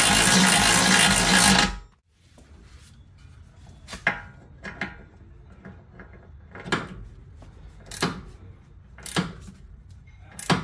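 A power tool runs steadily with a hum, then cuts off abruptly about two seconds in. A series of separate sharp clicks and knocks follows, roughly one a second.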